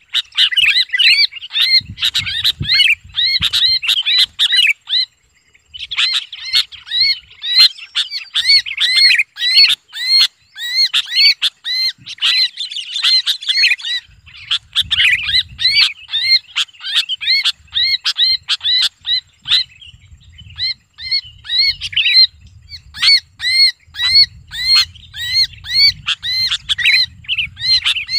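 Sooty-headed bulbul giving its harsh distress scream: rapid, repeated sharp calls, several a second, with a brief pause about five seconds in. These are the calls of a bulbul held and pinched in the hand.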